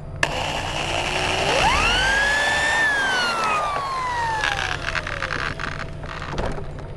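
Corded electric drill boring a pilot hole in an RV screen door frame. The motor whine climbs quickly in pitch as it spins up about a second and a half in, then falls slowly over a few seconds as the motor winds down.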